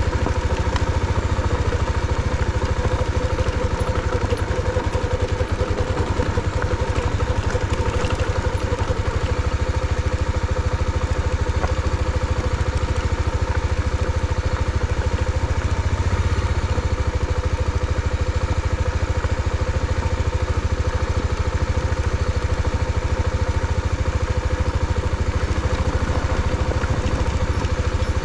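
Motorcycle engine idling steadily at an even speed.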